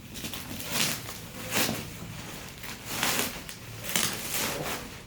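Shipping package for a mixer-blender being opened by hand: a series of short scraping, rustling strokes, about one a second.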